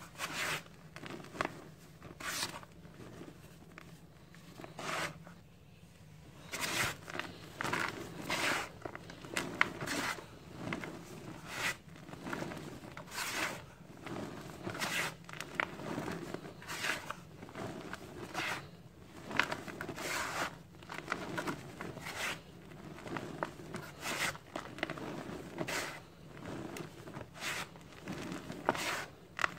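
Hands raking, scooping and crumbling dry powdered cement and soil: a run of short gritty swishes and sifting falls, a few at first, then about one or two a second from around seven seconds in.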